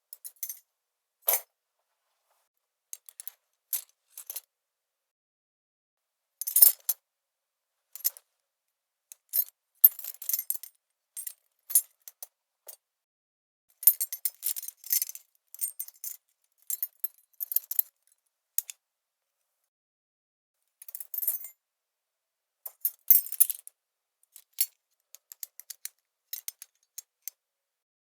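Metal keys on a key chain being shaken and jingled in a series of separate short takes, bright clinks and rattles, some single taps and some longer jangles, with full silence between them.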